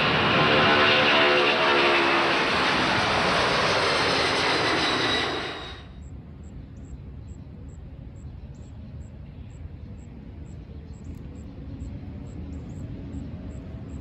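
McDonnell Douglas DC-10 trijet's engines at takeoff power, loud, with pitches sliding downward; the sound cuts off abruptly about six seconds in. Then quiet outdoor background with a faint rising tone toward the end.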